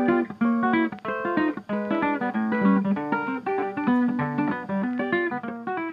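Background music: a plucked acoustic guitar playing a quick run of picked notes, several to a second, starting abruptly.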